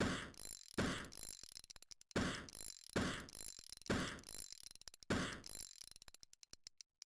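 Hand-tool ratcheting clicks during the teardown of a knockoff speaker: about six strokes a second or so apart, each a sharp click followed by a quick run of smaller clicks, thinning out and stopping near the end.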